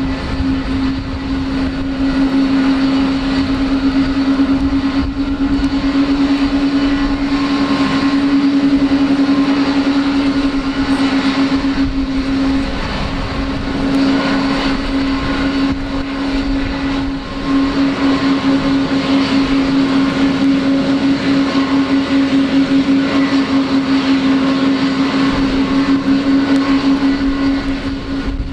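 Boeing 777-200 airliner's twin jet engines at idle thrust as it taxis in slowly: a steady, loud drone with one strong low hum, taking on a fast throbbing beat in the second half.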